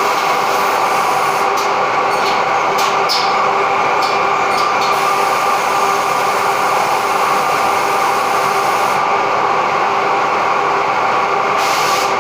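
Automatic edge banding machine running, a steady motor drone with several held tones. A few sharp clicks come between about two and five seconds in.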